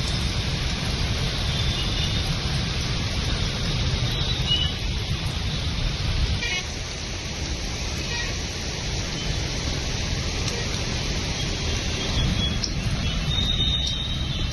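Steady street noise with a low rumble of passing traffic, and short high-pitched chirps now and then.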